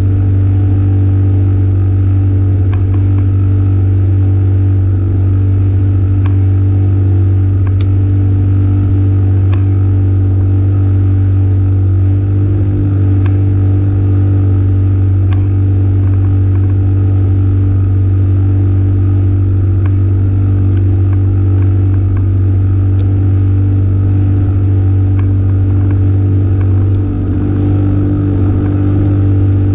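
A small engine running steadily at one even speed, a deep constant hum, with a few faint light ticks now and then.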